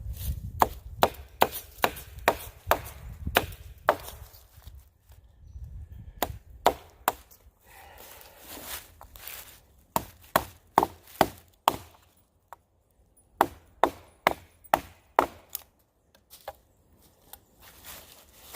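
Sharp wooden knocks in runs of several strikes, about two or three a second, with short pauses between runs: a pocket knife blade being batoned into the trunk of a dead standing tree, chipping out wood to fell it.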